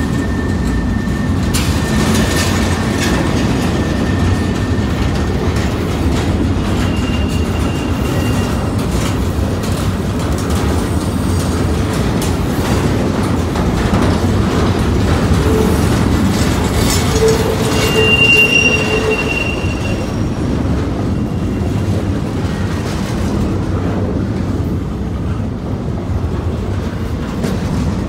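Double-stack intermodal freight cars rolling past close by: a steady heavy rumble of steel wheels on rail. Thin, high wheel squeals come and go, the loudest about two-thirds of the way through.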